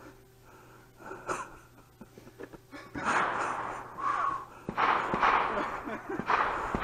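Hard, wheezing laughter: loud breathy gasps in repeated bursts about a second apart, starting about three seconds in, with one short voiced squeak in the middle.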